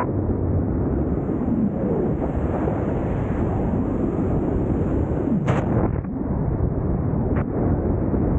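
Freefall airflow battering the camera's microphone during a wingsuit flight: a loud, steady low rumble of wind, with a brief sharper crackle about five and a half seconds in.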